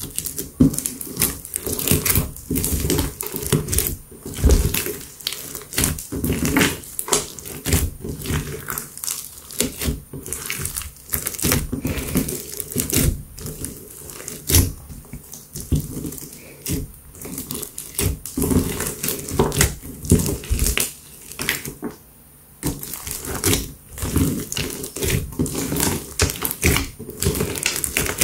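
Hands kneading and squishing a big lump of slime full of small beads and sequins, making dense, irregular squelching and crackling. There is a brief lull about 22 seconds in.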